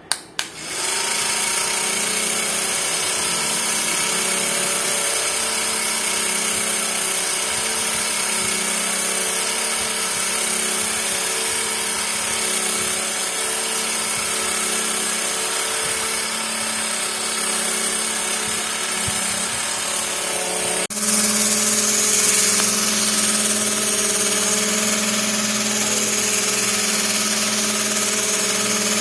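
Small DC motors of a homemade electric helicopter, switched on with a click and running steadily with a whine, the propellers spinning. About 21 seconds in the motors step up suddenly, running louder.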